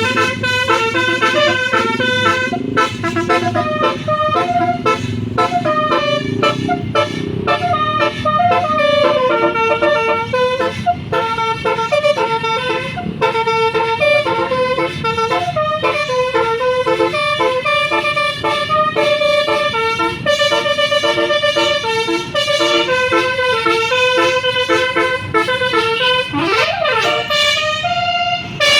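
Bus telolet horn, a multi-trumpet air horn on a tour bus, playing a continuous run of short stepping notes in a tune, with a siren-like swoop that falls and rises again near the end.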